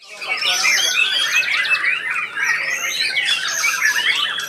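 White-rumped shamas (murai batu) singing: a loud, dense, unbroken stream of rapid whistles, chatters and trills that starts abruptly at the beginning.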